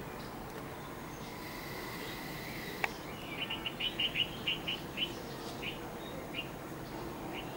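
A bird chirping: a quick run of about a dozen short, high chirps that slows down and fades over a few seconds. A single sharp click comes just before it.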